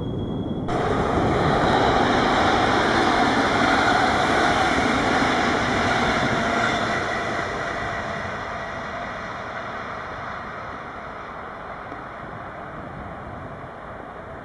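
A train passing close by with a loud rushing rumble that starts abruptly about a second in, stays loud for several seconds, then slowly fades away as it recedes.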